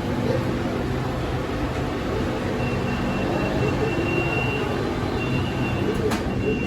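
A BTS Skytrain electric train running, heard as a steady rumble and hum. A faint high whine comes in about two and a half seconds in and again near the end.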